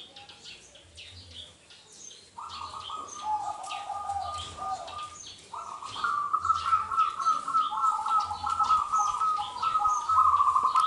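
Zebra dove (perkutut) cooing in rapid, trilling phrases: a shorter phrase a couple of seconds in, then a longer, louder one from about halfway through. Small birds chirp high over it.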